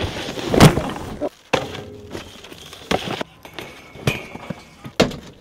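Snowboard crashes on rails and boxes: a string of hard, sudden impacts as boards and riders hit metal and snow. The loudest comes about half a second in, with four more spread through the rest.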